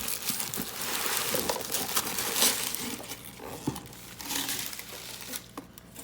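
Packaging being handled and unwrapped: a run of crinkling and rustling with small knocks, loudest around the middle.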